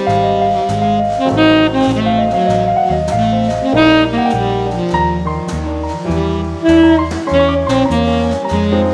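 Background jazz music: a saxophone melody over a walking bass, with piano and drums.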